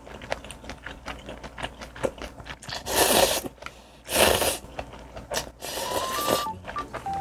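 Ramen noodles being slurped in three loud sucking slurps, about three, four and six seconds in, with soft wet chewing clicks between. The noodles are soggy from sitting in the soup. A simple stepping tune starts near the end.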